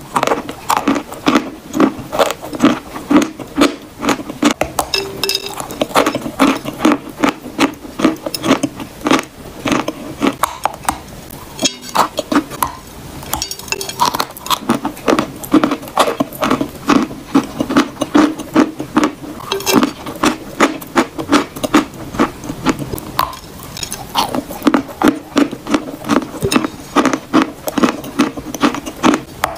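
Close-miked chewing and biting of edible chalk blocks: a steady run of crisp crunches, a few each second.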